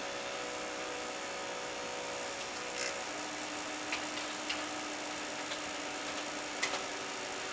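Desktop computer running with a steady whir and a faint whine that drops lower about three seconds in, with a few scattered sharp clicks. The owner suspects the video card is making the clicking.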